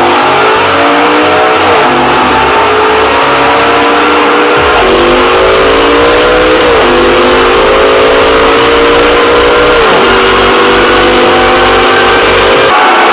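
V10 engine of a swapped race car accelerating hard through the gears, its pitch climbing and then dropping at each of about four upshifts.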